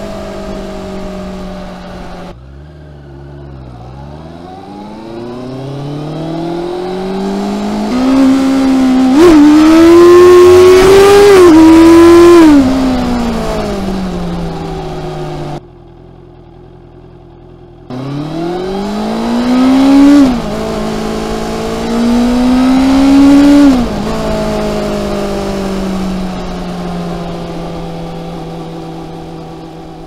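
2019 Honda CB650R inline-four engine through its stock exhaust, pulling hard through the gears twice: the pitch climbs and drops back at each upshift, then falls as the bike slows. Near the end it settles to a steady cruise and fades.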